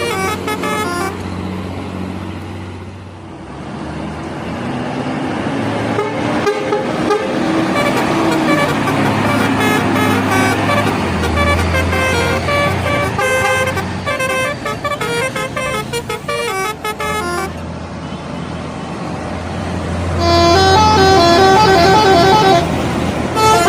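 Telolet horns on Indonesian buses playing quick multi-note tunes that step up and down in pitch, over the steady running of bus engines. The loudest tune starts about twenty seconds in.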